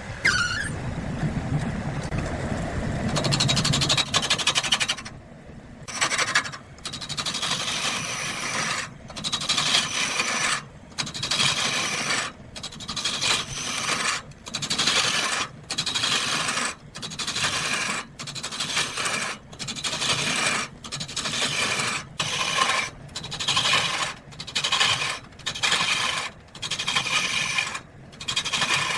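A low machine rumble for the first few seconds gives way to rhythmic rasping strokes of a hand tool working wood, about one stroke a second, each followed by a short pause.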